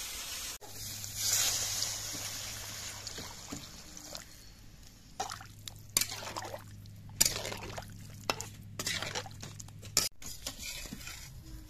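Thick fish curry gravy bubbling and sloshing in a metal wok while a flat metal spatula stirs it. A steady hiss fills the first few seconds, then a run of sharp spatula strokes and splashes follows from about five seconds in to near the end.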